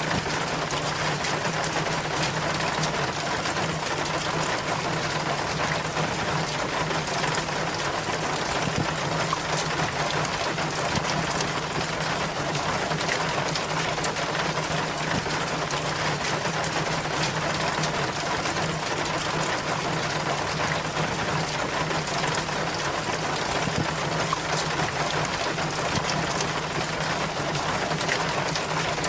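Rainwater running and splashing steadily down a rain chain, a constant, even wash of water noise with a low steady hum underneath.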